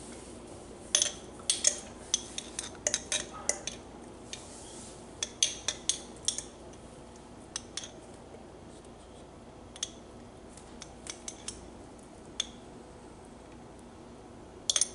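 Metal fork clicking and tapping against a seasoning jar and plastic container while jerk seasoning is scooped onto raw chicken. The light clicks come in quick runs for the first six seconds or so, then thin out to a few scattered taps.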